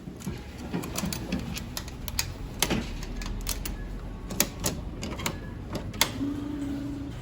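Irregular sharp clicks and clacks from hand-held small plastic items, with a brief low hum about six seconds in.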